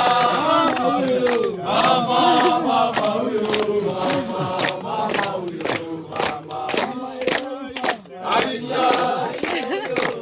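A group of men and women singing and chanting together, with handclaps in time.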